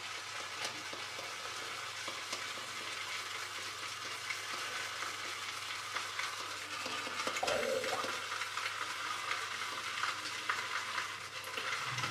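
A 3-band silvertip badger shaving brush swirled on a puck of Stirling Satsuma shaving soap to load it: a steady, fine crackling swish of wet bristles working the soap.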